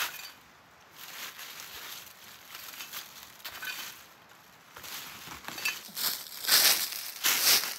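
Small shovel scraping and clinking through charcoal and ash in a stone fire pit. About six seconds in come two loud crunches of dry fallen leaves.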